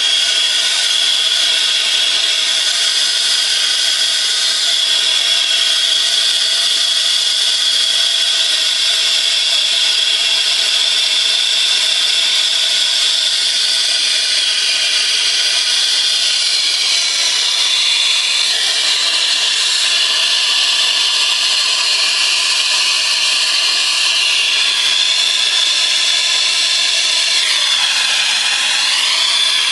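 Brazing torch flame hissing steadily as it heats a copper refrigerant line joint. The tone of the hiss shifts a little about two-thirds of the way through and again near the end.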